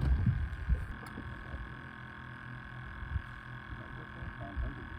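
Wind buffeting the microphone in irregular low rumbles, heaviest in the first second, over a faint steady high whine.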